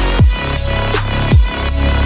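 Electronic background music with a steady beat: a deep kick drum that drops in pitch on each hit, over a sustained bass line.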